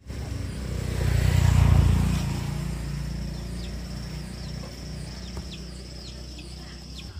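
A vehicle engine running close by, swelling to its loudest about a second and a half in, then settling to a steadier, lower hum. Short high chirps repeat over it.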